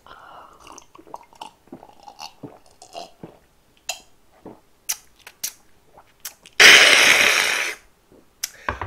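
A man gulping down a glass of somaek (soju mixed with beer), with small swallowing, lip and glass clicks. About two-thirds of the way in comes a loud, breathy exhale lasting just over a second, once the drink has gone down.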